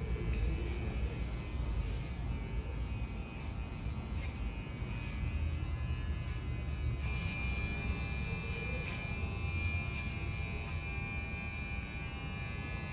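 Madeshow cordless hair clipper buzzing steadily as it cuts hair.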